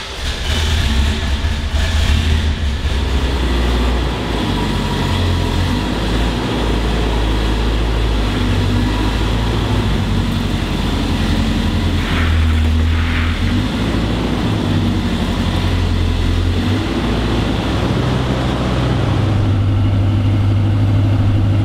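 Toyota Previa's mid-mounted four-cylinder engine running just after start-up, a steady low drone that shifts in pitch a few times.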